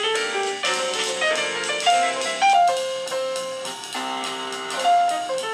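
Jazzy music with piano and drums playing through a smartphone's built-in speakers as a speaker test, with no deep bass.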